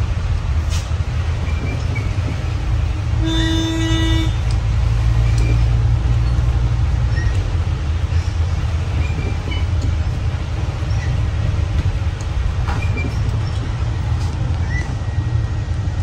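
Steady low rumble of a vehicle running, with one horn toot lasting about a second, roughly three seconds in.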